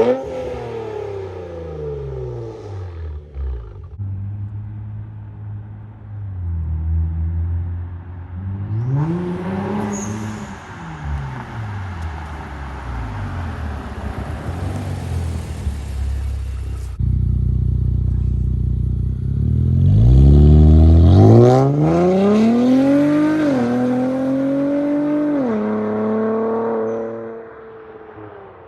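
Infiniti Q50/Q60 twin-turbo V6 with downpipes and an MBRP exhaust, revving and accelerating in several cut-together clips. The engine note rises and falls, and about 20 seconds in it pulls hard, with the pitch stepping down twice as it shifts up.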